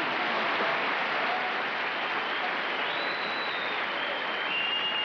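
Studio audience applauding steadily, a dense wash of clapping, greeting a character's entrance.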